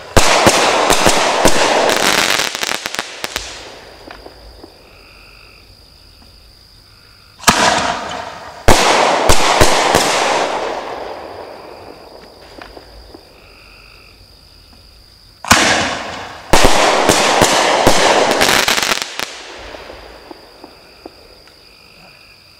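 Consumer artillery firework shells fired from a mortar tube. A shell bursts just at the start with a loud bang and several seconds of fading crackle. Two more shells follow about eight seconds apart, each a launch thump, then about a second later a bang and crackling that dies away over a few seconds.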